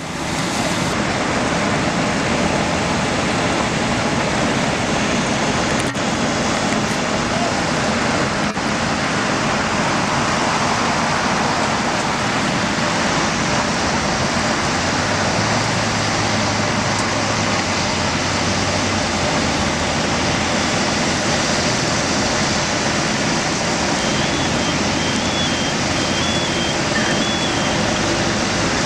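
A tractor-trailer fire burning, heard as a steady dense noise mixed with running fire-engine motors, with a couple of faint sharp pops and a short run of high beeps near the end.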